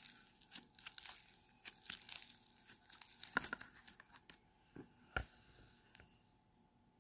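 Pink snow fizz slime being squeezed and pressed by hand, giving a fine, crisp crackling. There is a cluster of louder pops about halfway through and a single pop a couple of seconds later, and it grows quieter toward the end.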